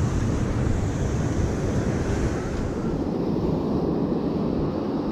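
Ocean surf breaking and washing onto a sandy beach, with wind rumbling on the microphone; the higher hiss thins out about three seconds in.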